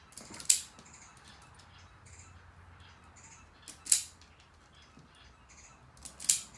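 Wire stripper stripping insulation off 12-gauge electrical wire: three sharp snips, each led by a few small clicks as the jaws are set and closed.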